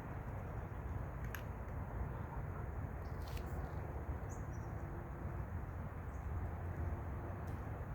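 Steady low outdoor background rumble with a few light clicks and two or three faint, short, high chirps.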